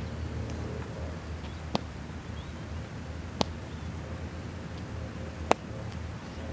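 Three sharp single knocks, irregularly spaced about two seconds apart and the last the loudest, over a steady low outdoor rumble.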